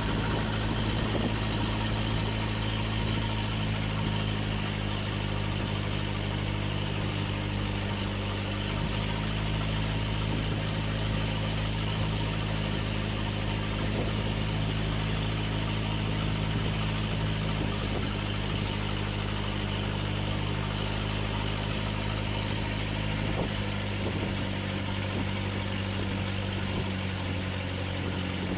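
Tour boat's engine running steadily under way, a constant low drone with water rushing past the hull.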